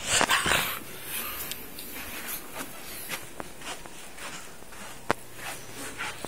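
Rustling and rubbing of a phone being handled against its microphone, loudest in the first half second, then softer scattered rustles and light clicks, with one sharp click about five seconds in.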